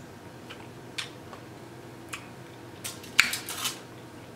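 Sipping a drink through a straw from a plastic cup, with a few small clicks. About three seconds in comes a brief, louder clatter as the plastic cup is set back down on the table.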